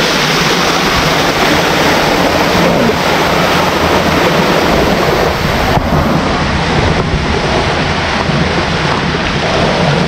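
Loud, steady rushing of a waterfall close by, falling water with no let-up.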